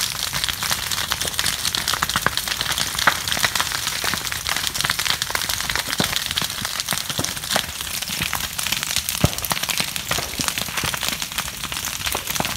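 Bamboo grove and dry leaf litter burning: dense, continuous crackling with sharp pops scattered through it.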